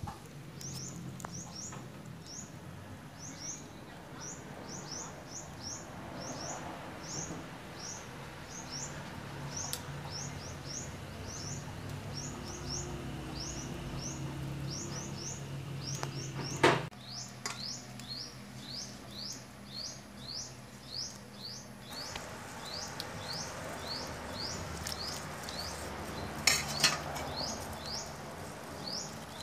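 A short, high, rising chirp repeated steadily two to three times a second, from a small creature calling near the fire. Cookware sounds over it: a sharp metal clink about two-thirds in and a brief clatter near the end, as of a utensil against the wok.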